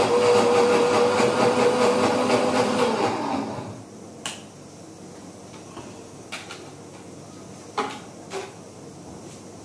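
Electric mixer grinder running, grinding soaked urad dal into a thick paste without water, with a steady motor whine. About three seconds in it is switched off and winds down. A few sharp clicks follow as the jar is handled.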